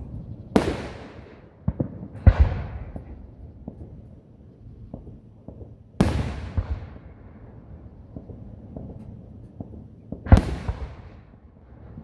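Fireworks going off: four loud booms a few seconds apart, each trailing off, with smaller sharp pops and crackles between them.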